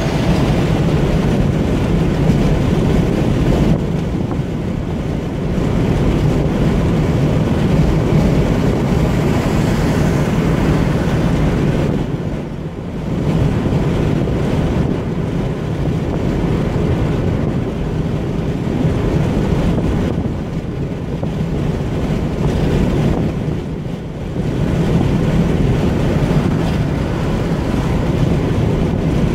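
A car cruising at motorway speed, heard from inside the cabin: steady tyre and wind noise over a low drone. The noise eases briefly twice, about a third of the way in and again later.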